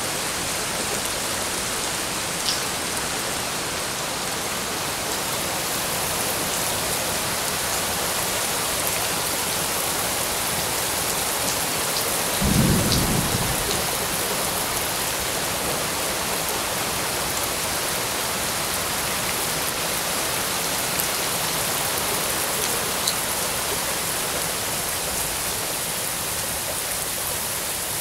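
Heavy monsoon-season downpour falling steadily on tree leaves, with a few sharper drop ticks. About halfway through, a brief, loud rumble of thunder rises out of the rain.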